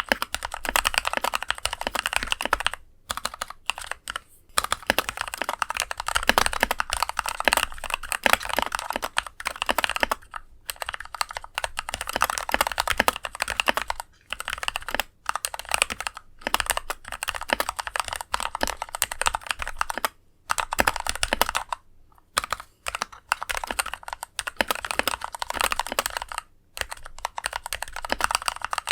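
Typing on an NK65 mechanical keyboard fitted with Kailh Pro Burgundy linear switches lubed with Krytox 205g0: quick runs of keystrokes with a deep thonk, broken by brief pauses every few seconds. The switches stay scratchy in sound despite the lube.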